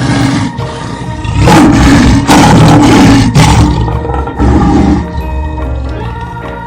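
Animal roar sound effects, a few loud rough roars, the longest about one and a half seconds in and another a little before five seconds, over steady background music.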